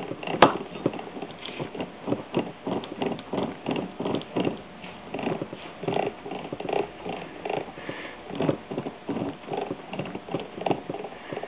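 1955 MG TF-1500 differential's crown wheel turned slowly by hand, giving a run of light, uneven ticks, with one sharper click about half a second in. The ticks are the small remaining backlash between the spider and axle gears, freshly shimmed.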